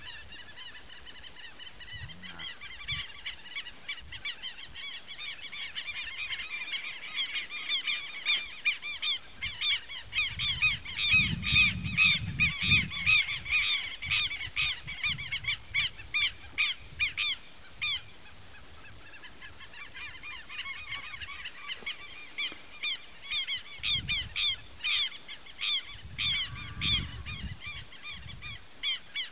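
Birds calling: rapid, repeated short harsh calls in two long bouts, with a lull about two-thirds of the way through.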